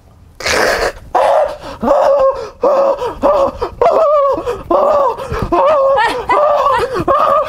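A man's voice whimpering in a nightmare: a rapid run of short, wavering "nya-nya-nya" cries, about two a second.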